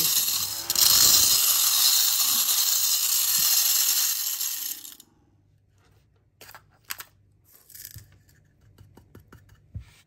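A battery-powered Maxxmee mini handheld vacuum runs with a steady high airy whir while rice grains rattle inside it as they are sucked up. It cuts off about five seconds in, followed by a few light plastic clicks as the unit is handled and opened.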